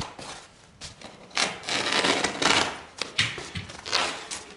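Rustling and scraping of thin 3 mm foam floor underlay being handled and trimmed on a wooden floor: a long rustle of a second or so, then several short scraping rustles and a few sharp clicks near the end.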